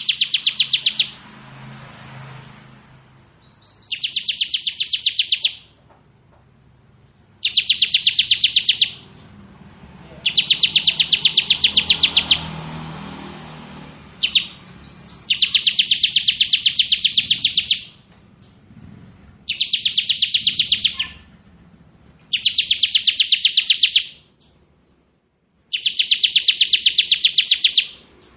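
Bar-winged prinia (ciblek) singing its rapid, drilling "ngebren" trill, high-pitched and finely pulsed, repeated about eight times in bursts of one to three seconds with short pauses between.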